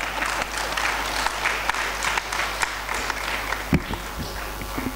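Audience applauding, a dense patter of many hands clapping that dies away near the end. About three-quarters through there is a single thump on the microphone.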